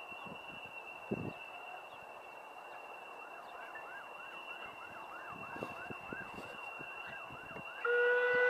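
A faint high squeal rising and falling about three times a second, then near the end a locomotive whistle sounds, loud and steady.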